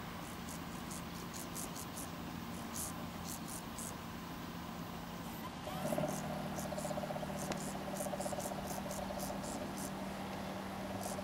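Grasshoppers stridulating: runs of short, high, scratchy chirps that come and go. About halfway through, a low steady hum comes in and carries on underneath.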